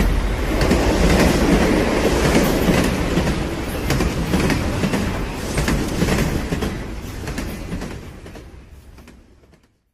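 Loud, steady rumbling and rattling with many sharp clicks, fading away over the last few seconds.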